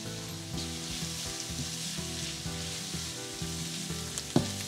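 Chopped onions sizzling as they sauté in hot oil in a pan, stirred with a wooden spoon, with one sharp knock near the end. Soft background music plays underneath.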